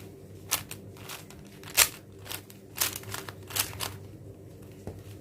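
Plastic 4x4 Rubik's cube being turned by hand: a quick series of clacking clicks, about seven layer turns, the loudest near two seconds in.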